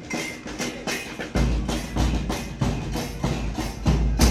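Murga drum section playing a fast, steady beat, with deep bass drum strokes joining about a second and a half in.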